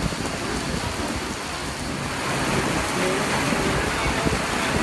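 Heavy rain pouring down in gusty wind, a steady dense hiss over an uneven low rumble, growing louder about two seconds in.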